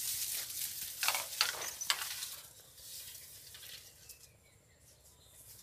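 Crackling rustle of dry reed and grass stalks close to the microphone, with a few sharp cracks in the first two seconds. It fades to a faint background after about two and a half seconds.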